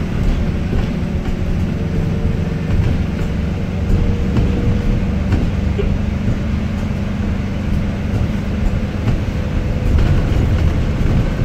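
ADL Enviro400MMC double-decker bus's diesel engine and drivetrain running, heard from inside the passenger saloon: a steady low rumble with a faint, even whine over it for much of the time.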